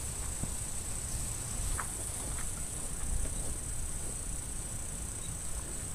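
Steady high-pitched drone of insects in the grass, with a low rumble and scattered faint rustles from walking through tall grass.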